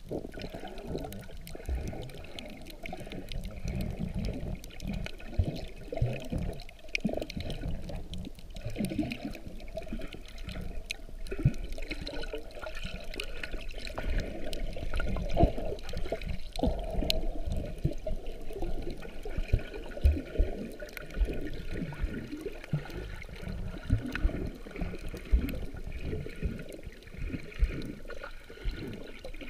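Muffled water sloshing and gurgling around a camera held underwater, with many short knocks and bumps scattered through.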